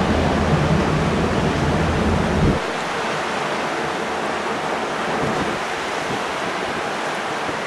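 Wind and sea water rushing past a ship under way, a steady hiss. A deep rumble underneath stops abruptly about two and a half seconds in.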